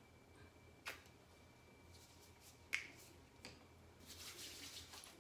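Three sharp plastic clicks as a small lotion bottle is squeezed and handled, the second the loudest, then near the end a soft swishing as hands rub the lotion in.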